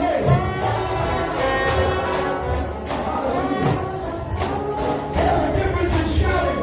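Shout-band gospel music: brass horns playing a moving, chord-filled line over a steady driving beat, with tambourine jingling on the rhythm.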